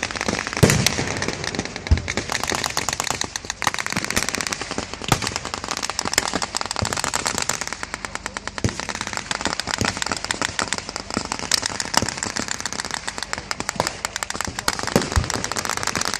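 Blank gunfire: rapid strings of machine-gun and small-arms shots crackling almost without pause, with louder single bangs scattered through, about half a dozen times.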